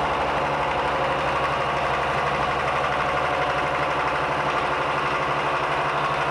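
Milling machine spindle turning a 45-degree chamfer cutter through the edge of a welded steel part: a steady machine hum with a fast, even pulsing from the cutter teeth in the cut.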